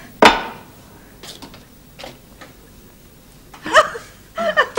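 A single loud, sharp clack of tableware being struck or set down, with a brief ring, then a few faint clinks. Near the end, short chuckles from the diners.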